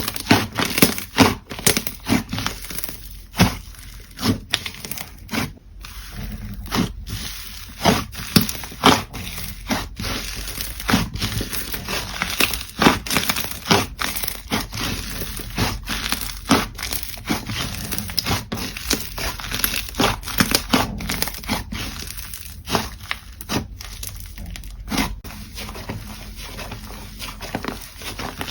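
Slime being kneaded and pressed, giving dense, irregular popping and crackling clicks.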